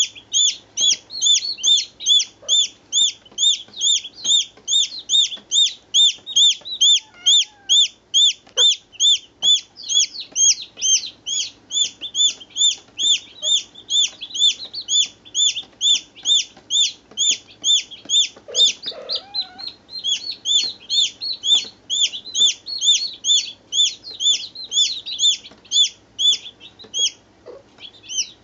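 Baby chicks peeping: a steady, rapid run of high, falling peeps, about three or four a second, with a short break about two-thirds of the way through.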